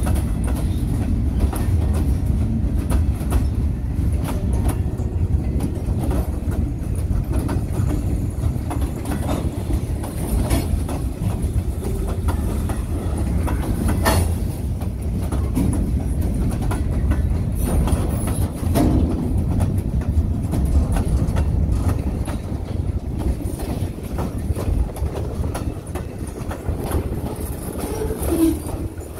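Freight train cars (boxcars and covered hoppers) rolling past close by: a steady low rumble of steel wheels on the rails with scattered clicks and clanks, one sharper clank about fourteen seconds in.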